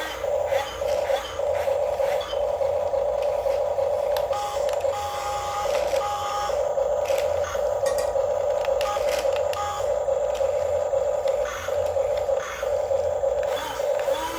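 Electric motors of a Huina 1550 RC excavator whining steadily as the model works, with a few short higher-pitched tones in the middle and light clicks.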